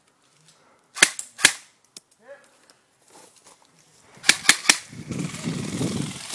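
Airsoft rifle firing single shots, sharp cracks: a few about a second in, then three quick ones around four seconds in. A low rustling rumble of movement follows near the end.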